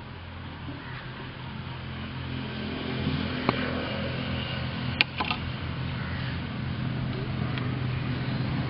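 A motor engine hum, steady in pitch and growing gradually louder, like a vehicle drawing nearer. A few sharp clicks sound around the middle.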